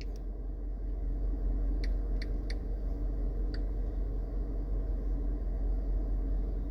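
Steady low rumble, with a few faint clicks about two to four seconds in.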